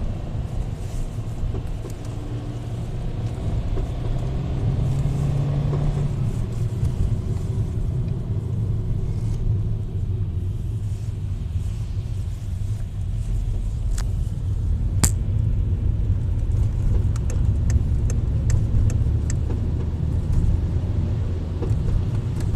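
Škoda Octavia A5 under way, with a steady low engine and road rumble. Sharp clicks come through it: a single click, then a loud one about two-thirds of the way through, then a quick run of clicks shortly after. This is the periodic knock under load that is felt in the gear lever, which the owner suspects is in the gearbox.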